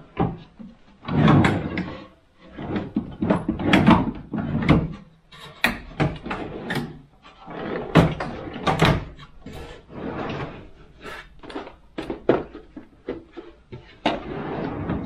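Home-built wooden drawers running open and shut on drawer slides, one after another. Longer sliding swishes come in the first few seconds, then a run of sharp knocks as drawers are pushed closed.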